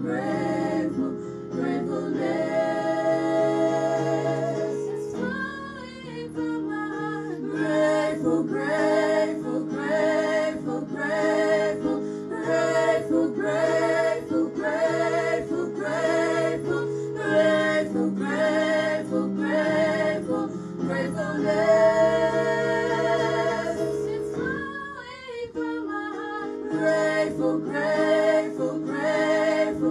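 Gospel worship song: singing led by a woman's voice over sustained chords and a steady beat.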